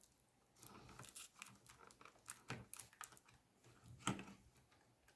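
Faint, scattered small clicks and taps of laptop parts being handled as the display ribbon cable's connector is pressed into the motherboard socket, with a few sharper clicks.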